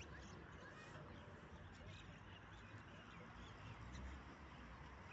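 Near-quiet outdoor ambience: a faint steady background hum with scattered, distant bird chirps.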